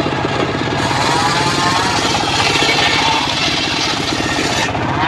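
Engine-driven circular sawmill running steadily, its blade cutting through a log from about a second in until shortly before the end.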